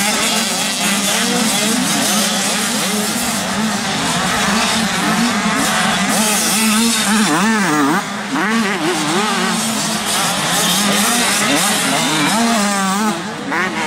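Several 85cc two-stroke motocross bikes racing on a dirt track, their engines running at once as a dense overlapping buzz. The pitch rises and falls quickly as riders open and close the throttle over jumps and corners, most sharply about seven seconds in and again near the end.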